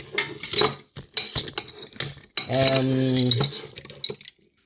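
Metal utensil clinking and scraping against a glass jar and dish while onion-infused honey is strained, in a run of sharp clicks. A low held hum sounds for about a second partway through. The clatter stops shortly before the end.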